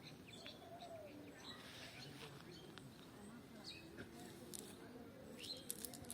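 Faint bird chirps and calls over quiet background, with distant murmuring voices and a few sharp clicks near the end.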